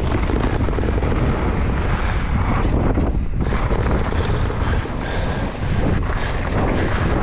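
Wind buffeting the microphone and the rush of a mountain bike running down the trail at speed, a steady loud noise that eases briefly about three seconds in.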